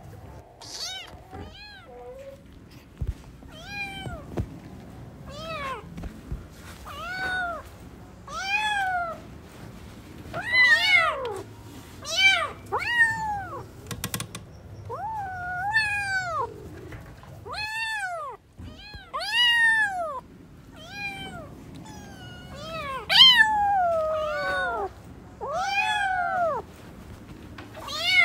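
Kittens meowing over and over, a call about every second, each one rising and then falling in pitch; the loudest calls come about two-thirds of the way through.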